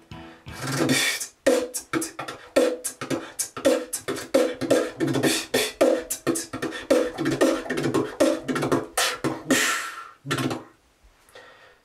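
Human beatbox (voice percussion) demonstration: a fast beat of mouth bass-drum, hi-hat and snare sounds with cymbal and rapid-roll fills worked in, including a long hissing cymbal sound near the end. The beat stops about a second before the end.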